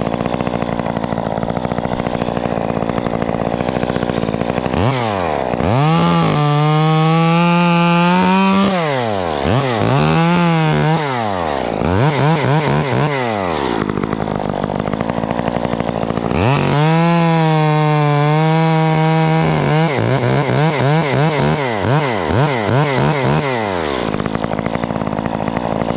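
Gas chainsaw idling, then opened up to full throttle and held there for about three seconds, twice, with shorter revs rising and falling between and after.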